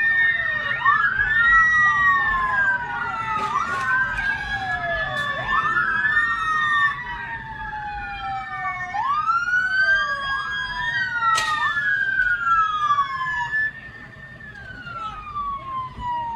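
Several police car sirens wailing at once, their overlapping rising and falling tones sweeping up and down out of step with each other. They drop in level near the end.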